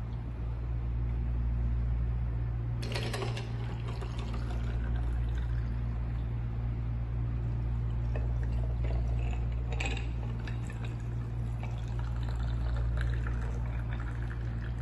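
Black tea poured from a stainless steel jug into glasses packed with ice cubes, a steady splashing stream broken by a few clinks, about three seconds in and again near ten seconds. A steady low hum runs underneath.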